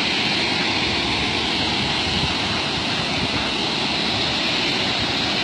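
Steady, loud rush of flowing water from a creek running down the valley, even and unbroken throughout.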